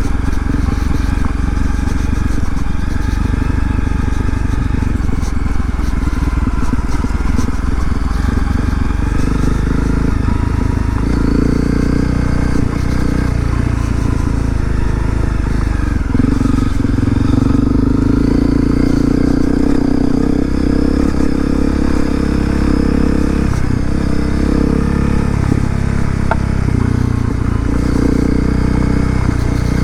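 A 2018 Honda CRF250L's single-cylinder four-stroke engine running as the dual-sport bike is ridden along a trail, its note shifting up and down a few times with the throttle and settling into a stronger, steadier tone about halfway through.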